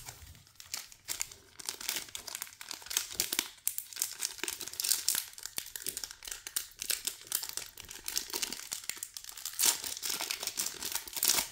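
A 1991 Leaf baseball card pack wrapper being crinkled and picked open by hand: a steady crackle of small crinkles and tearing that grows louder near the end as the wrapper gives way.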